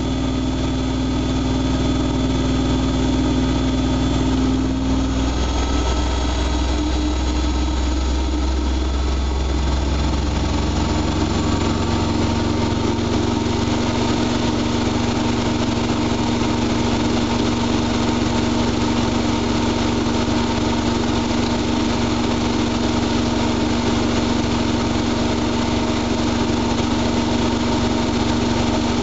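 Siemens iQ front-loading washing machine running mid-cycle, its drum motor giving a steady mechanical hum. The pitch of the motor tone shifts about five seconds in, and the low rumble drops away around eleven seconds, after which it settles into an even whine.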